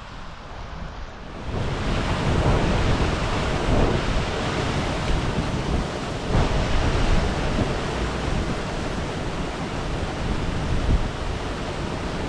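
Steady rush of a moorland stream's small waterfalls, with wind buffeting the microphone; the noise jumps suddenly louder about a second and a half in.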